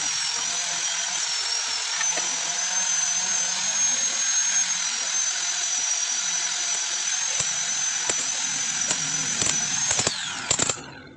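Cordless drill running steadily against a metal turbocharger part, a high whine over a rough grinding noise; about ten seconds in it spins down with a falling whine and stops.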